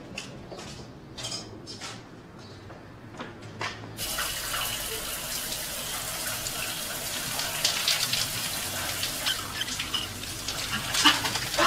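A few dull knocks of a football being kicked and bounced on a garage floor, then from about four seconds in a shower running steadily, its spray a continuous hiss.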